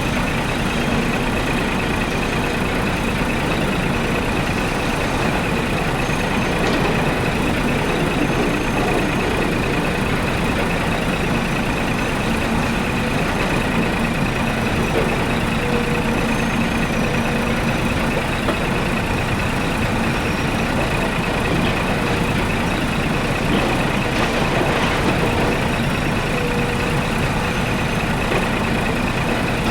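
Steady truck-like engine drone with a faint high whine, unchanging in level throughout.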